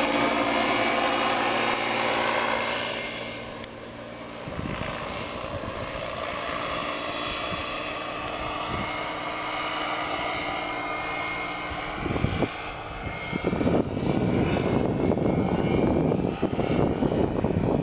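Panther XL microlight trike's engine and propeller running as it passes overhead, loud at first, then fading as it flies away after about three seconds. From about two-thirds of the way through, a loud, uneven low rumble covers it.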